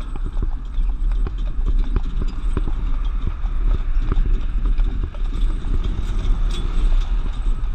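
Horse's hooves clip-clopping on the road as it pulls the tour wagon, a quick run of sharp hoof strikes over a steady low rumble from the moving wagon.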